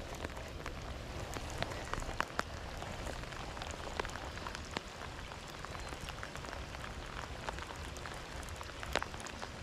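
Water pattering and trickling: a steady hiss dotted with irregular small ticks and drips.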